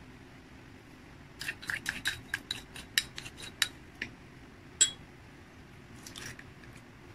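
Metal spoon clinking against a glass mixing bowl and the hand-mixer beaters in it while cream cheese is knocked off into the bowl: a quick run of about a dozen light taps, then one louder clink that rings briefly. A faint rustle follows.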